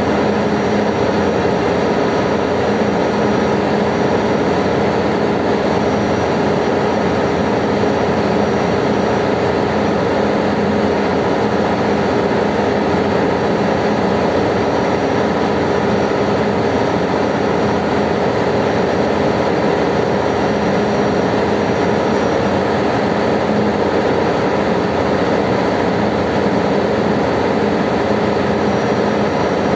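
Ship's engine-room machinery running: a loud, steady drone with a few low hum tones under a broad even noise, unchanging throughout.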